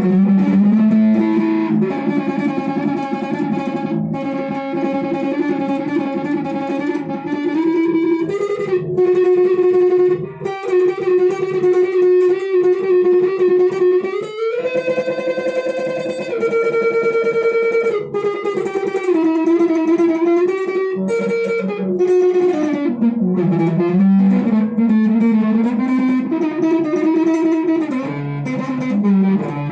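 Electric guitar played solo, improvising a slow melody of long held notes that change every second or two, with a few slides between pitches.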